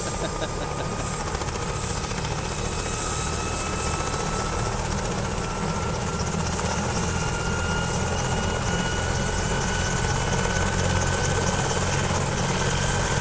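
Helicopter starting up on the ground, its rotor beginning to turn: the turbine whine rises slowly in pitch and grows gradually louder as the engine spools up.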